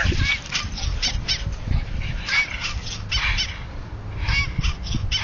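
A dog whining and yipping in a string of short, high-pitched cries, over many brief knocks and scuffles.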